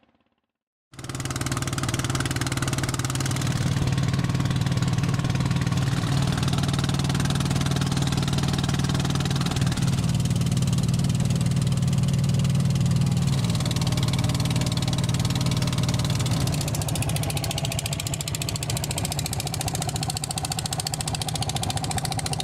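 Ferry boat's engine running steadily under way, an even low hum that starts abruptly about a second in.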